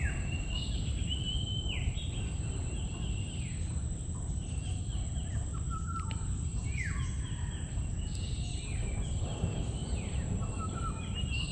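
Several wild birds calling in mangrove woodland, with repeated short whistled phrases that drop in pitch and overlap one another. A steady low rumble runs underneath.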